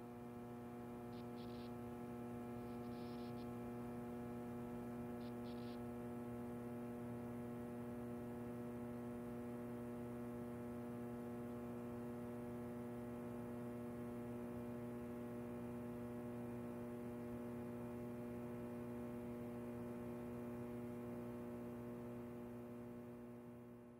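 A steady, low electrical hum with several overtones, fading out near the end.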